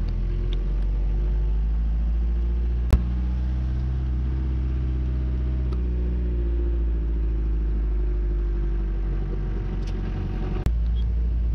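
Camper van being driven on the road: a steady low engine and road rumble with a slowly drifting engine note. There is a single sharp click about three seconds in and an abrupt knock near the end.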